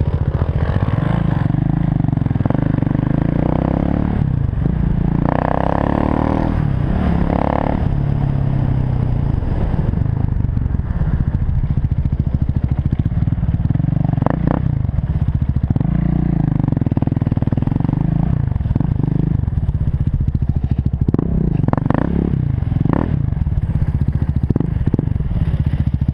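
KTM 690 Duke's single-cylinder engine running while the bike is ridden, its note rising and falling with the throttle. Short knocks and rattles come through several times in the second half as the bike crosses rough grass.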